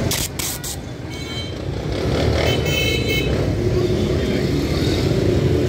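Street traffic: a steady rumble of passing vehicle engines, with a vehicle horn sounding briefly about two and a half seconds in. In the first second, a short rasp of adhesive cloth tape being pulled off its roll.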